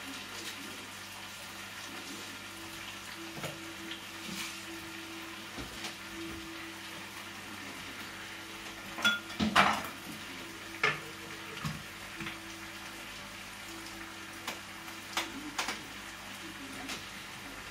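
Clinks and knocks of utensils, dishes and a blender jar as ingredients are handled at the counter, loudest about nine to ten seconds in. Under them run a faint steady hum and the low sizzle of the pepper mixture cooking in the pan.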